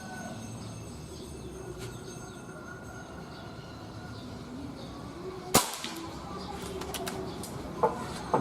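A single sharp shot from a .177 air rifle about five and a half seconds in, with a brief ringing tail. A couple of light clicks follow near the end over a low background hiss.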